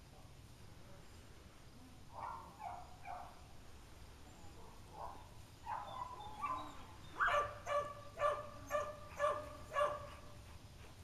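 A dog barking: three short barks about two seconds in, then a quicker, louder run of about six barks, roughly two a second, in the last few seconds.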